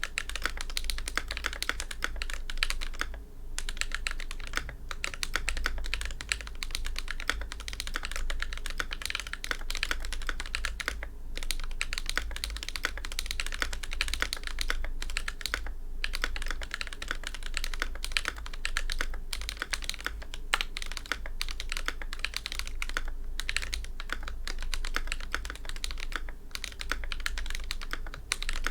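Glorious GMMK Pro mechanical keyboard being typed on rapidly, with hand-lubed Akko Ocean Blue tactile switches on an aluminum plate under ABS double-shot keycaps. The keystrokes run in fast, continuous runs with a few short pauses, over a steady low hum.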